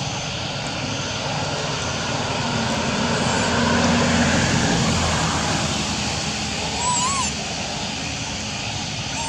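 Steady distant engine drone that swells to its loudest about four seconds in. A short rising-and-falling squeak comes about seven seconds in.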